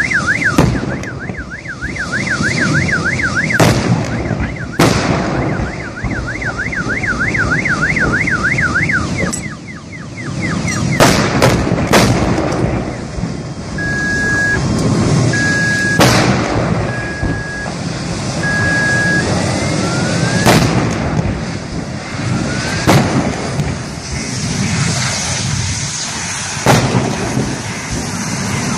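Gas cylinders on a burning truck exploding one after another, a sharp bang every few seconds, with a quick cluster of bangs about eleven seconds in. A car alarm warbles rapidly up and down at the start and again for several seconds before that cluster, and four short even beeps sound about halfway through.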